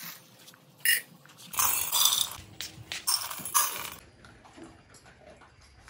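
Dry kibble poured from a metal ladle into stainless steel dog bowls, rattling and clattering in several short pours, followed by fainter sounds of dogs eating from the bowls.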